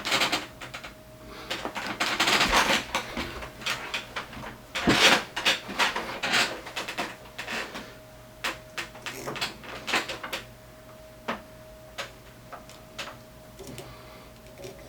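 Workbench handling noises: an irregular run of clicks, taps and rustling as wires and tools are picked up and set down, over a faint steady tone.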